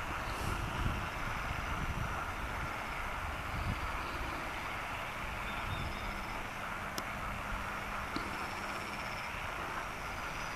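Steady outdoor background noise with a low rumble, like distant traffic or wind, and faint high chirps repeating in the distance. A single sharp click sounds about seven seconds in.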